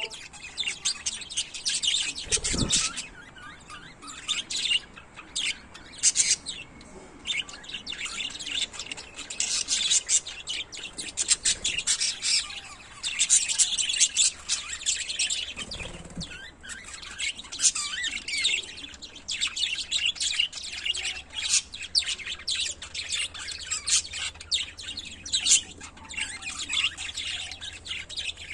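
A pair of pet budgerigars chirping and warbling continuously in rapid, high, twittering calls. There is a brief low thump about two and a half seconds in and another around sixteen seconds.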